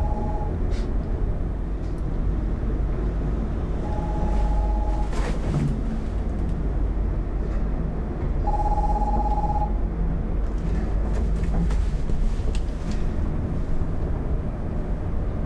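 Nokia mobile phone ringing with an incoming call: short two-tone rings roughly every four seconds, three in all, the last the loudest, then it stops. Under them the steady low rumble of a moving lift car.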